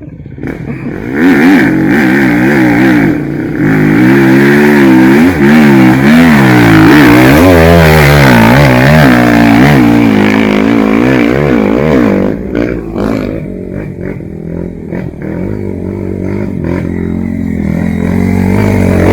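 Trail motorcycle engine revving hard, its pitch rising and falling over and over for about ten seconds, then dropping to a lower, steadier running note about twelve seconds in.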